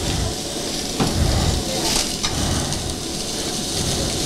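Hot flat-top griddle sizzling and crackling as freshly squeezed oil heats on it, with a couple of sharp knocks about one and two seconds in.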